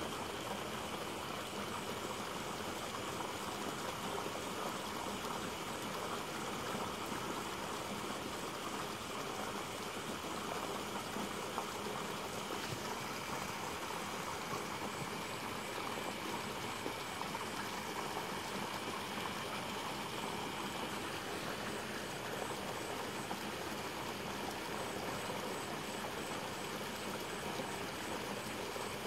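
Steady outdoor night ambience: a constant rushing noise, with a faint, high, rapid pulsing that comes and goes in the second half.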